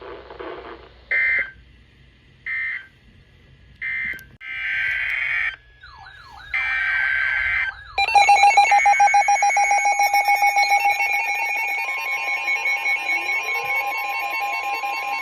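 EAS end-of-message data bursts: three short digital squawks about a second and a half apart. Two longer data bursts follow with a warbling tone between them, then from about eight seconds in a loud, pulsing electronic alert tone with several pitches that runs on.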